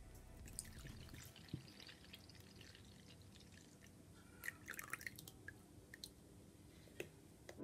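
Faint dripping and trickling of warm water poured from a glue bottle into a bowl of clear glue, with a cluster of small drips and splashes a little past halfway.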